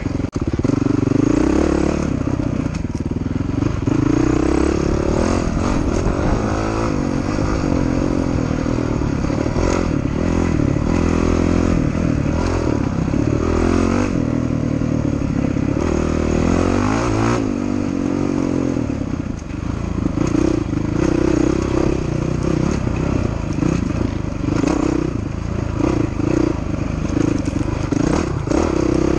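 Off-road dirt bike engine running hard, its revs rising and falling repeatedly with throttle and gear changes, with knocks and rattles from the bike over the rough trail.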